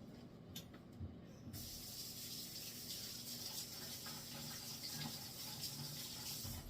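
Kitchen tap water running steadily as hands are washed, starting suddenly about a second and a half in and stopping near the end.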